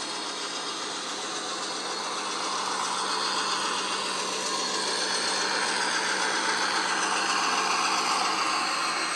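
Factory-fitted ESU DCC sound of a Cavalex Class 56 model locomotive: a recorded Class 56 diesel engine running, played through the model's small onboard speaker. It grows louder for most of the clip as the model approaches, then eases slightly near the end.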